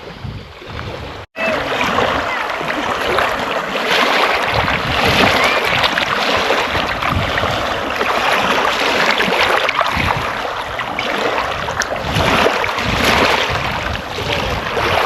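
Steady rushing of wind and water, as from a boat under way on the lake, starting after a sudden cut about a second in.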